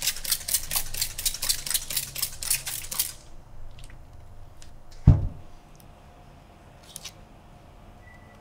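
Trigger spray bottle squirting water onto rattan chair cane in quick repeated pumps, about four or five a second, for about three seconds. About five seconds in comes a single heavy thump, louder than the spraying.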